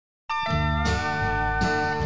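Background music starting about a quarter second in: the instrumental intro of a country-rock song, with sustained pedal steel guitar notes over guitar and bass.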